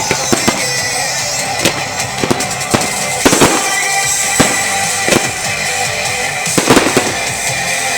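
New Year's Eve fireworks going off: sharp bangs and crackles at irregular intervals, the heaviest about three seconds in and again near the end, over music playing.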